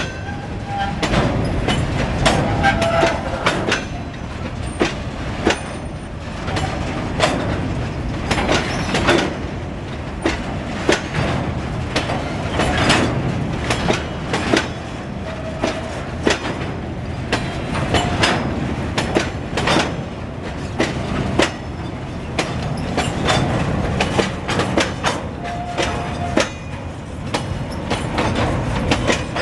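Train of steel gondola wagons rolling past, the wheels clacking and knocking over rail joints and points. A few short squeals come from the wheels.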